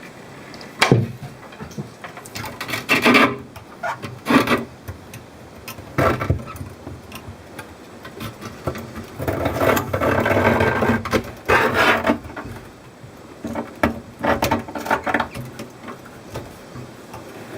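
Irregular knocks and rubbing against wood, with a longer stretch of scraping about halfway through.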